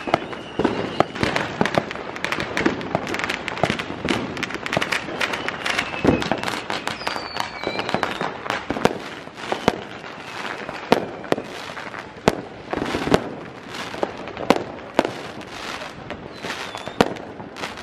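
Many fireworks and firecrackers going off at once across the sky: a dense, irregular run of bangs and crackles with a few thin whistles among them.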